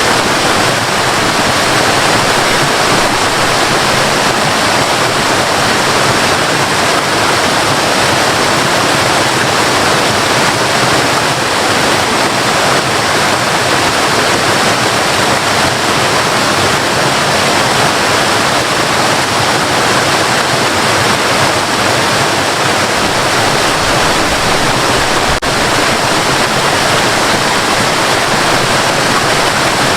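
Waterfall rushing steadily, a dense, constant roar of falling water.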